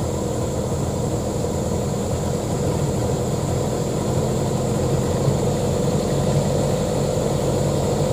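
Diesel truck engine idling steadily, with a thin high whine running over it.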